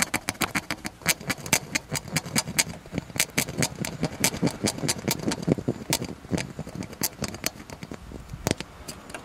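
Rapid, irregular scratching and clicking of a tool scraping paint off the refrigerant sight glass in an AE86's engine bay.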